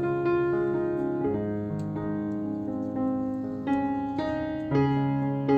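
Background piano music: sustained piano chords with notes changing about every half second over a held bass.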